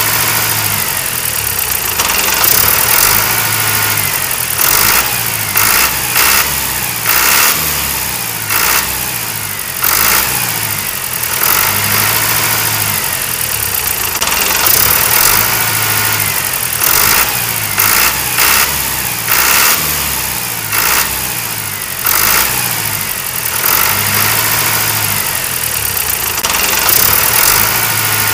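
Tractor engine sound, chugging steadily with repeated rises in revs. The same passage repeats about every twelve seconds, like a looped sound effect.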